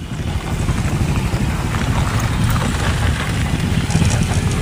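Diesel locomotive of an approaching passenger train running, a steady low rumble.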